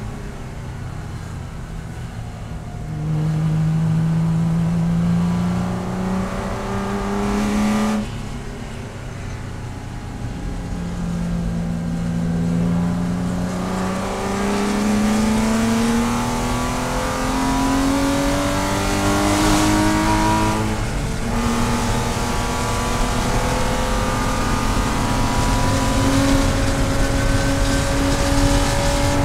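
Porsche race car's engine heard from inside the cockpit, accelerating hard. Its pitch climbs, falls sharply about eight seconds in when the driver lifts, then climbs again for a long stretch. It drops once more at the upshift into fourth about two-thirds of the way through and climbs steadily to the end.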